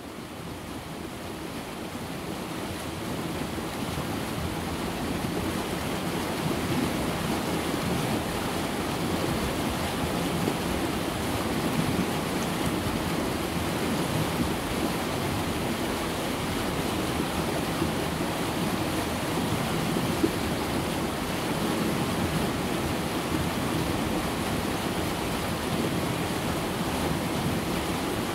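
The River Conwy rushing over rapids between rocks in a gorge: a steady wash of water noise that fades in over the first few seconds, then holds level.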